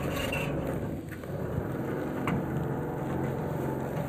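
Truck-mounted crane's hydraulic drive running steadily as it lifts a pallet of beehives, working a bit harder under the load of the hives. A short click about two seconds in.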